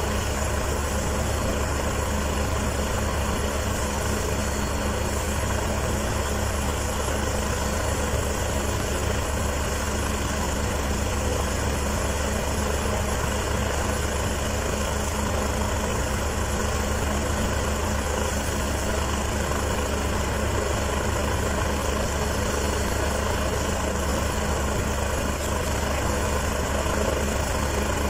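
Helicopter sitting on the helipad with its engine and main rotor running steadily, a constant drone with a strong low hum, as it runs on the ground before lifting off.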